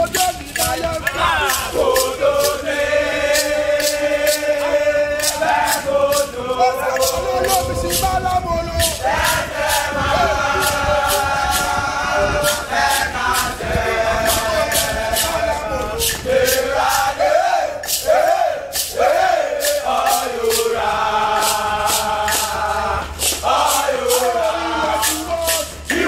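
A group of young men singing a chant together, with a beaded gourd shaker rattling a steady beat and hands clapping along.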